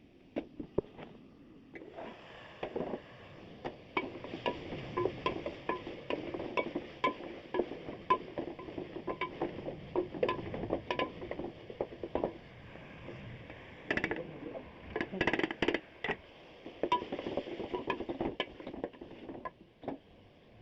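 A utensil stirring food in a cooking pot, with repeated clinks and scrapes of metal against the pan, roughly one a second, and a quicker flurry of knocks in the middle.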